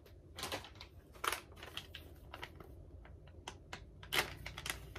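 Plastic pouches of dog treats crinkling as they are handled: a run of short, irregular crackles, the loudest about four seconds in.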